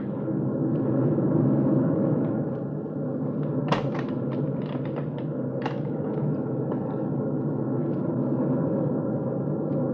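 Steady low drone of a large aircraft's engines in flight, a radio-drama sound effect for the inside of the carrier plane. A few short clicks and knocks sound over it, the sharpest about four seconds in.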